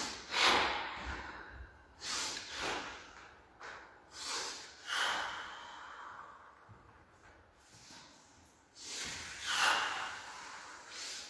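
A man's audible breathing, paced with slow qigong movements: about four drawn-out breaths a couple of seconds apart, with a longer pause before the last one.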